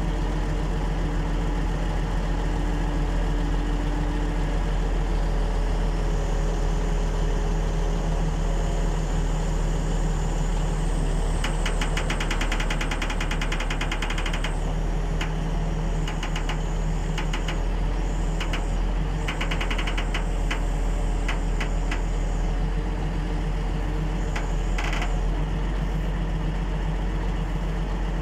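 Wheel loader's heavy diesel engine running steadily as it works a marble block onto a flatbed trailer. Two spells of rapid metallic clicking come in a little before and after the middle.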